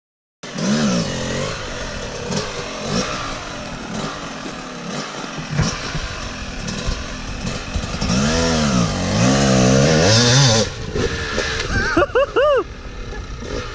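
Yamaha YZ250 two-stroke dirt bike engine revving up and down under throttle as it climbs, starting about half a second in and loudest around eight to ten seconds in. Near the end come a few quick, sharp blips of the throttle.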